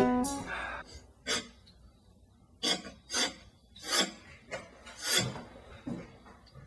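A series of short rasping scrapes, about seven, spaced unevenly.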